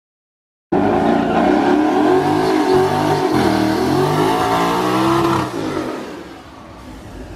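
Twin-turbocharged 5.0 L Coyote V8 of a 2019 Ford Mustang GT, breathing through a Corsa Xtreme exhaust, revving hard through a burnout as the rear drag tyres spin and smoke. It cuts in under a second in, its pitch wavering up and down, and eases off to a lower level about five and a half seconds in.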